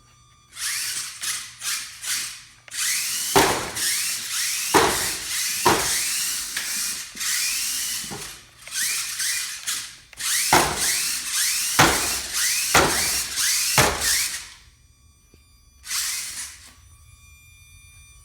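Small electric drive motors of a VEX robot whirring in repeated spurts, with short rising whines as they spin up and about seven hard knocks among them. The whirring stops about three-quarters of the way through, and one short last spurt follows.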